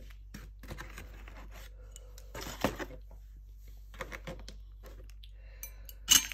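Kitchen knife cutting and scraping through a cake coated in hard gold sugar pearls, in a few separate crunching strokes against the cake board, then a sharp clink near the end.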